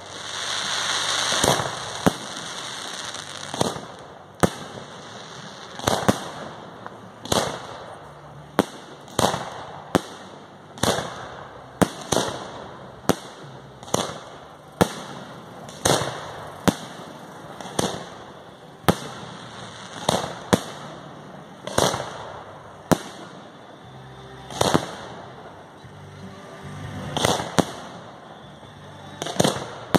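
Fireworks display: aerial shells bursting one after another, a sharp bang roughly every second, each trailing off briefly. A stretch of crackling in the first two seconds.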